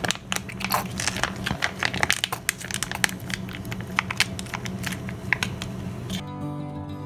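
Foil-lined tomato sauce pouch crinkling as it is squeezed and handled, emptying its sauce into a plastic bowl. Acoustic guitar music comes in about six seconds in.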